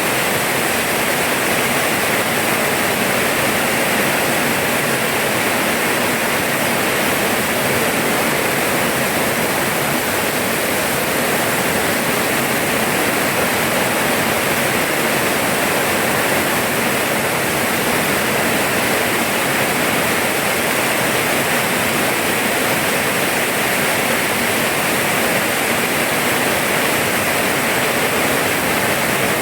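Steady rainfall: an even, unbroken hiss of rain with no distinct drops or pauses.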